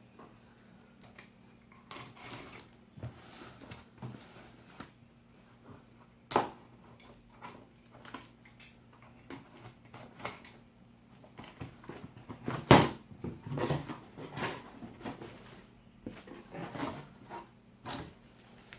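Handling and opening a cardboard shipping box and its packing: scattered rustles, scrapes and clicks, with one sharp knock about 13 seconds in and busier handling after it.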